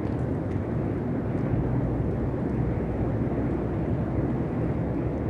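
Steady low rumble, a dark ambient noise bed from a Halloween sound-effects cassette, with no distinct events.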